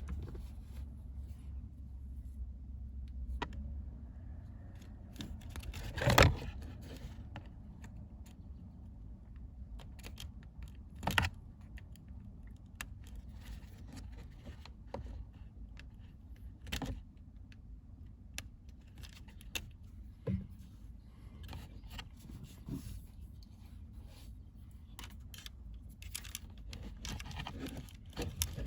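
Small parts being handled: scattered clicks, taps and light rattles of a plastic wiring connector and its pins, with a sharp knock about six seconds in and another about eleven seconds in.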